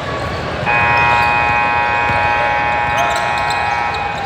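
Gym scoreboard buzzer sounding one long, steady, loud blast of about three and a half seconds that starts under a second in and cuts off at the end, over the background noise of a basketball game.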